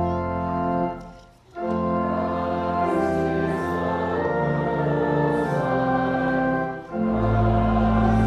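Church organ accompanying a congregation singing a hymn. A held chord ends, there is a short break about a second in, and then organ and voices start the next verse in steady sustained chords.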